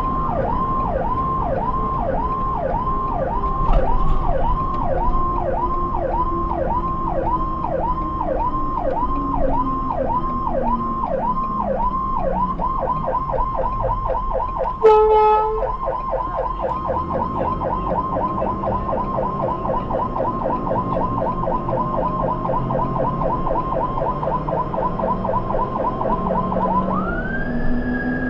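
Ambulance electronic siren heard from inside the cab, cycling in a yelp about twice a second, then switching to a faster yelp a little under halfway through. A short horn blast comes about halfway in. Near the end the siren changes to a slow wail, rising and then falling.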